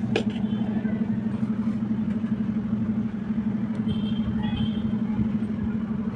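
A steady low machine hum, as of a motor or engine running, with a sharp click just after the start.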